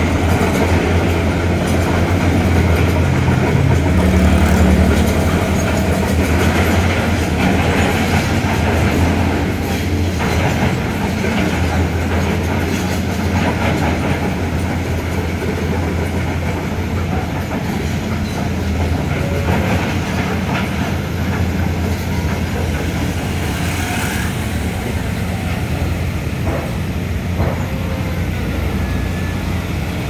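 Steady low engine rumble of heavy construction machinery and street traffic, with scattered clanks and clicks over it.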